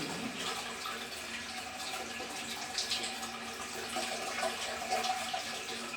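Water running steadily and nonstop through a toilet's flush mechanism, because the rubber seal of the flush valve has been removed and nothing shuts off the flow.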